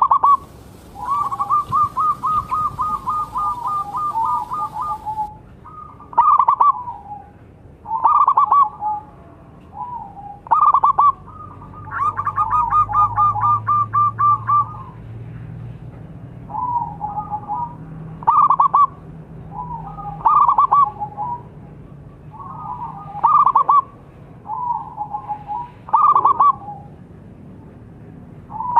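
Zebra dove (perkutut) cooing its staccato song. A long rapid run of notes comes near the start and again about twelve seconds in, with short phrases about every two seconds between and after.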